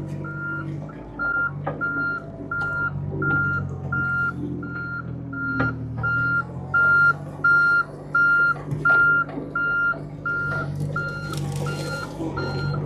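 John Deere mini-excavator's travel alarm beeping steadily, about two beeps a second, over the machine's diesel engine running, with a couple of short knocks from the machine working.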